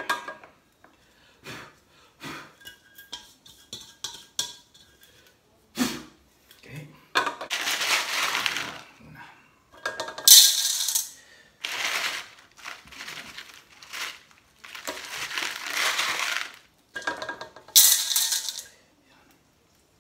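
Small white decorative pebbles being dropped into a glass terrarium vessel, clattering and clinking against the glass and each other in a run of bursts, the sharpest about ten seconds in and again near the end.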